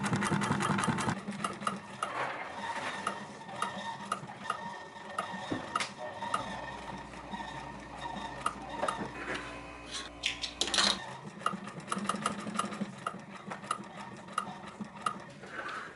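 Juki industrial sewing machine stitching through leather at a slow pace, a light tick of the needle and feed at each stitch, about two a second.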